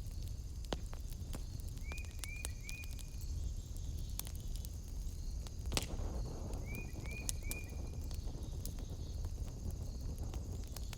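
Wood fire in a fireplace crackling, with scattered sharp pops and one louder crack about halfway through. Twice, a quick run of three short rising chirps sounds over it, along with a steady high-pitched hum.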